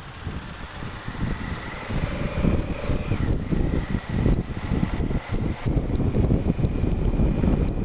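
Wind buffeting the action camera's microphone over the running engine of a Honda Africa Twin CRF1000L, a parallel-twin motorcycle, on the move. It gets louder about two seconds in as the bike picks up speed on a clearer road.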